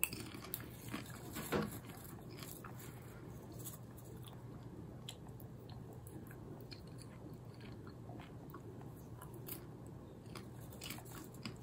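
Popcorn being chewed with the mouth close to the microphone: crunching and small scattered crackles, loudest in the first two seconds, then quieter.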